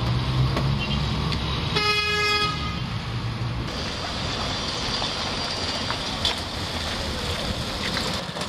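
Street traffic noise with a single short vehicle horn toot, under a second long, about two seconds in.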